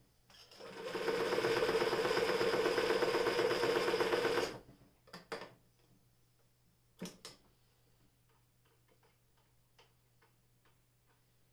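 Frister & Rossmann Model 45 electric sewing machine running at speed, stitching steadily for about four seconds and then stopping. A few sharp clicks follow.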